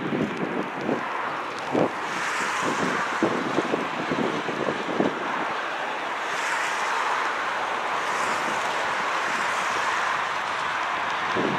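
Four turbofan engines of an Ilyushin Il-76 on landing approach, a steady jet rush that grows slightly louder as the aircraft closes in. Gusts of wind buffet the microphone with low thumps in the first few seconds.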